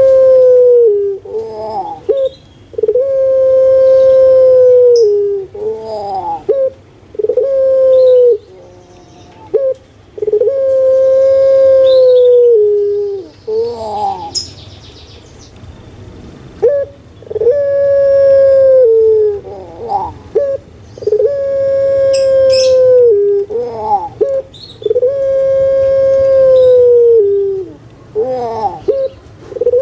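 Puter pelung dove (Barbary dove, Streptopelia risoria) cooing in its long, steady song. It gives a run of long held coos, each bending down in pitch at the end, linked by short rising notes, with a pause of a few seconds about halfway through.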